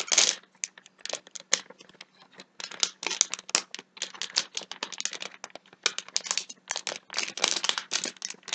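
A Shopkins blind-bag wrapper being opened by hand, crinkling in quick, irregular rustles.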